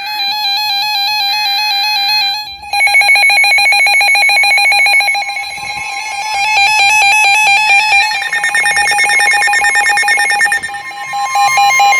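Several NOAA weather radios sound their alert alarms together for a severe thunderstorm warning, as loud, warbling, rapidly pulsing electronic beeps that pause briefly after about two and a half seconds. Near the end, a steady single-pitched warning tone joins in.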